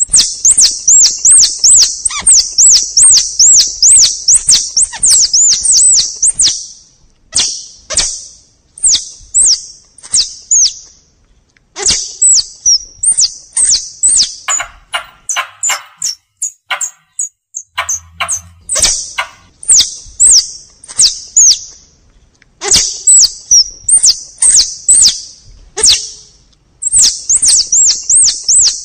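Hunting lure recording of forest squirrel (tupai) calls: fast runs of high, wavering chirps in bouts of a few seconds, broken by short pauses. Sharp clicks fall between the bouts, most plainly in a quieter stretch about halfway through.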